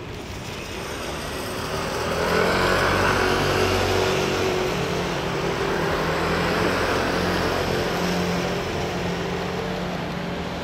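Shark Aero ultralight's Rotax 912 four-cylinder engine and propeller running with a steady drone. It grows louder about two seconds in and then holds.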